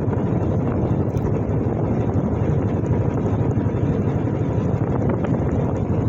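Wind rushing over the microphone of a moving vehicle, a steady low rumble with no breaks.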